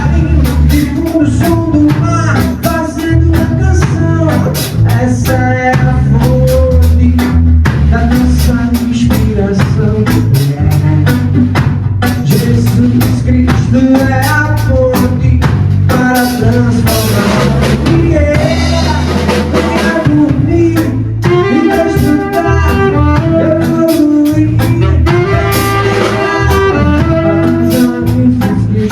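A band playing a song: a drum kit keeps a steady beat under bass and melody instruments.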